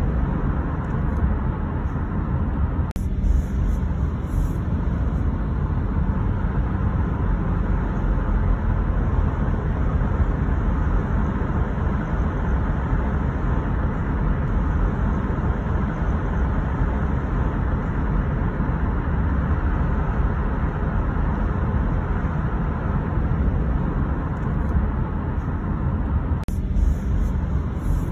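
Car driving on a city road: a steady rumble of tyre and engine noise, heaviest in the low end, with no break.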